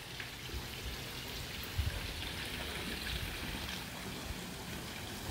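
Water from a raised spa spilling over its spillway into a swimming pool, a steady trickling splash. A soft knock sounds about two seconds in.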